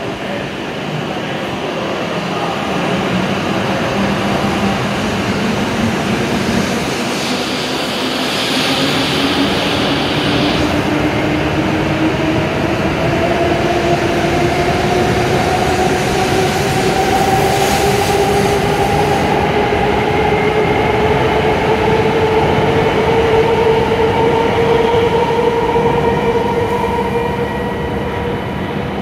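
W7 series Shinkansen trainset pulling out and accelerating alongside the platform: a steady rush of wheel and running noise, with a traction-motor whine rising in pitch as it gathers speed. A brief hiss comes about seven seconds in.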